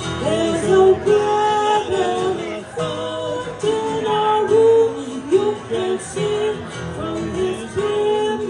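Live acoustic performance: a woman singing a gliding melody into a microphone, accompanied by a strummed acoustic guitar.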